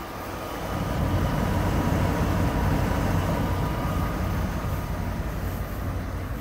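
Engine of a GMC C6500 TopKick medium-duty truck idling: a steady low rumble with a hum. It grows louder about a second in, stays strong through the middle, and eases off near the end.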